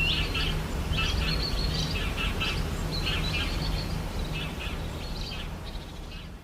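Small birds chirping in quick repeated bursts over a steady low rumble, fading out near the end.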